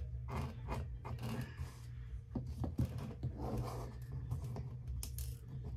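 Small scattered clicks and rattles of rhinestones being swept with a little brush around a rhinestone tray, over a steady low hum.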